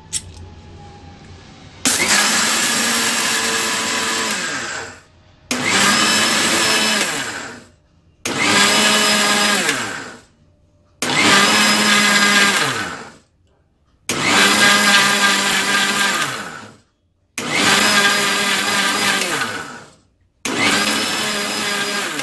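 Electric mixer grinder with a stainless steel jar run in short pulses: seven bursts of two to three seconds each with brief pauses between, the motor whine dropping in pitch as each burst winds down. It is grinding sugar and other dry ingredients into a fine powder.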